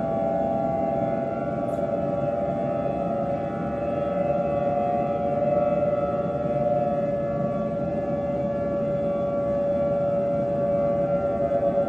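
Civil defense warning siren sounding a steady, sustained wail, two close pitches held together, with a little wavering in loudness near the end.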